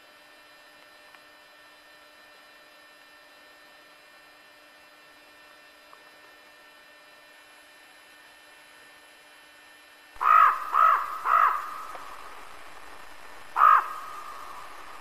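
Faint steady hum, then about ten seconds in a hand-blown deer call sounds close by: three short calls in quick succession and a fourth a couple of seconds later.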